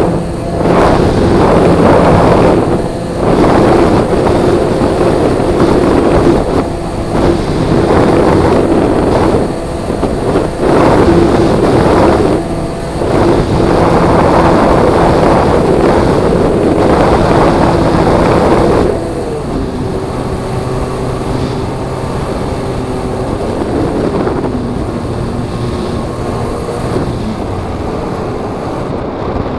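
Radio-controlled model aircraft's motor and propeller running, the whine surging and dipping with the throttle, then settling lower and quieter about two-thirds of the way through.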